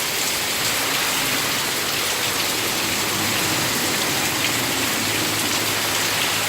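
Heavy rain pouring down in a steady downpour, hard enough to flood the ground.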